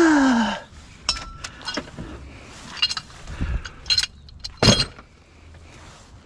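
A short falling groan of a man's voice, then a series of sharp metal clinks and clanks from tools and metal parts being handled, the loudest a little before the end.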